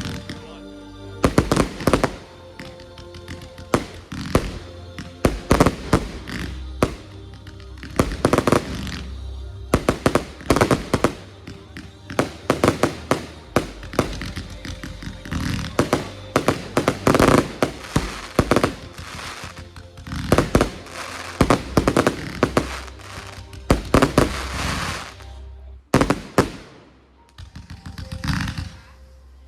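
Fireworks going off in rapid clusters of sharp bangs and crackles over music with a steady bass, the fireworks fired to the music as a pyromusical; a brief lull comes a few seconds before the end.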